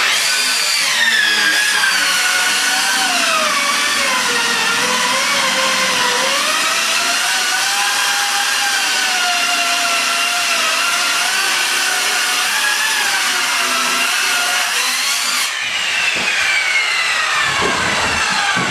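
Corded circular saw cutting through particle-board subfloor between the joists, its motor whine starting abruptly and dipping and recovering in pitch as the blade bogs under load. About 15 seconds in, the cut ends and the whine falls away steadily as the blade spins down, with a few knocks near the end.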